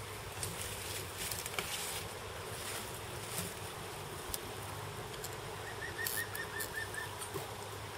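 Steady insect buzzing with scattered light clicks and, about six seconds in, a short bird trill of about eight quick rising notes.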